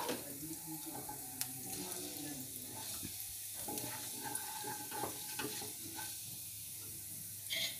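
Cumin seeds sizzling and crackling in hot ghee in a kadhai, stirred with a wooden spatula. The seeds are left to crackle well, the stage of tempering before the next ingredients go in.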